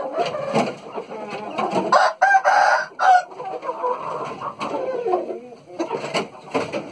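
Thai game chickens in a pen: a rooster crows once about two seconds in, among shorter clucks.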